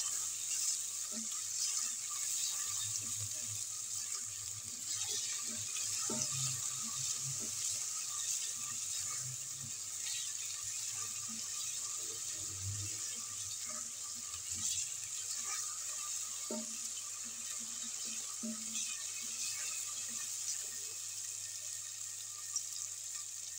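Chopped onion, tomato and green chilli sizzling steadily in hot ghee in an aluminium pan, with occasional light scrapes and taps of a spatula stirring them.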